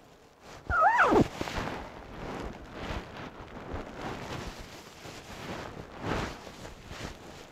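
Front zipper of a Mountain Hardwear Phantom Alpine down jacket zipped up quickly about a second in, a short rising-then-falling zip. Then the jacket's lightweight nylon shell rustles as the hood is pulled up over the head.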